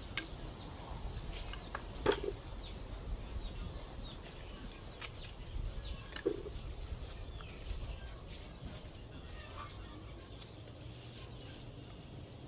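Chickens clucking now and then, with small birds chirping, scattered clicks and knocks, and a low steady rumble underneath; the loudest sounds are two short calls about two seconds in and about six seconds in.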